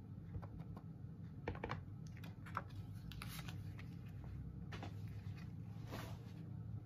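Clear photopolymer stamp on an acrylic block tapped on an ink pad and pressed onto card stock: a scattering of light clicks and taps.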